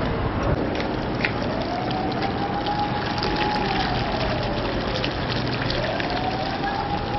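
A siren wails, its pitch rising and falling slowly about every four to five seconds, over a steady rushing and splashing noise of water running along a gutter, pushed up from the ground by soil liquefaction after the earthquake. A few sharp clicks are scattered through it.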